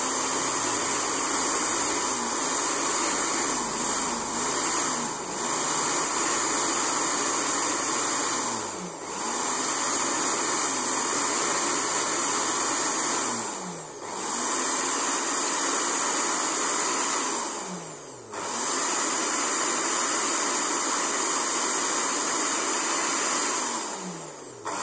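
Philips HR1731 blender motor running with no jar on, a steady high whirring hiss, switched off and on again several times as the switch is tested: each time the pitch falls as the motor slows, then it picks back up.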